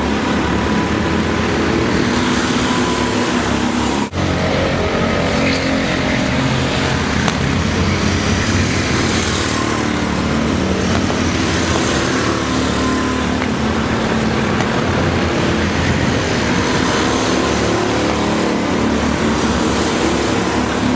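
Go-kart engines running at racing speed: a loud, steady engine noise whose pitch shifts up and down, with a momentary dropout about four seconds in.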